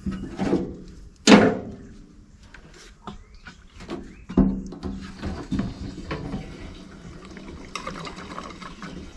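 Metal knocks and clanks as a fuel can and filler cap are handled at a diesel tractor's tank, the loudest about a second in and again past four seconds. Near the end, diesel starts pouring into the tank with a steady splashing hiss.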